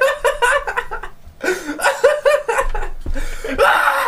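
Two men laughing hard in rapid repeated bursts. The laughter breaks off briefly about a second in, then picks up again and rises into a longer, higher laugh near the end.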